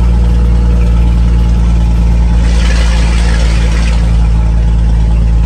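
Scania truck's diesel engine running steadily under way, a deep even hum heard inside the cab. A brief rushing hiss rises and fades about halfway through.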